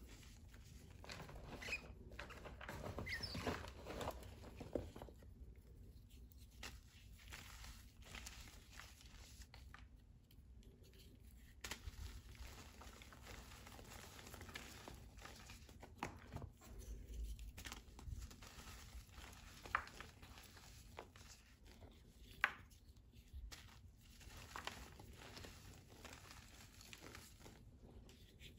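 Faint, irregular crunching and crumbling of powdery reformed gym chalk squeezed and broken up in bare hands, with a few sharper crackles.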